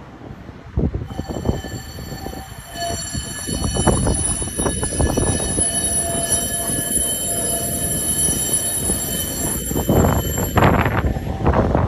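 Fukuram Liner low-floor tram running along curved track, its wheel rumble growing louder as it comes closer. From about a second in, several steady high-pitched squealing tones ring over the rumble as the wheels squeal on the curve.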